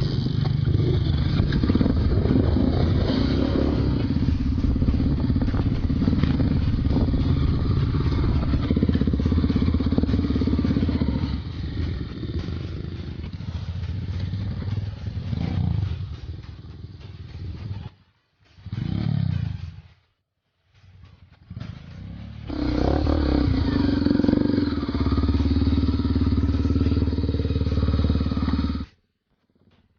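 Honda Tornado 250's single-cylinder four-stroke engine running while the trail bike is ridden. The engine note is steady, eases off about halfway through, breaks off twice, comes back strongly and then cuts off suddenly near the end.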